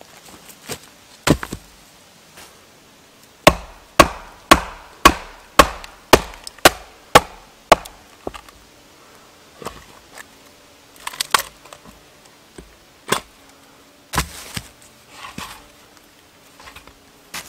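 Axe chopping into a log on a chopping block: a single blow, then a quick run of about nine strokes at roughly two a second, followed by a few lighter, scattered knocks.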